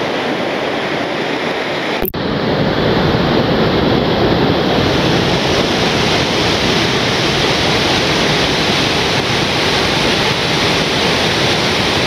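The Tirthan River, a glacier-fed mountain river, rushing through white-water rapids over boulders: a loud, steady rush of water. There is a brief break about two seconds in.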